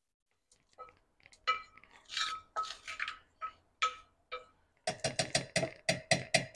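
Metal spoon scraping and clinking against a stainless steel pan, emptying roasted dal and coconut into a steel mixer jar. About five seconds in it turns to a quick, even run of ringing taps on the steel, about six a second, knocking the last bits off the spoon and pan.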